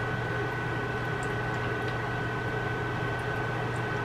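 Hot cooking oil sizzling steadily around a few floured chicken pieces frying in a pan, with a few faint spattering ticks, over a steady electrical hum.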